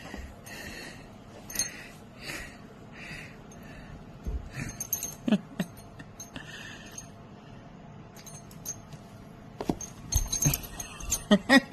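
A dog panting in a steady rhythm, with jingling like collar tags and a few short pitched sounds and clicks.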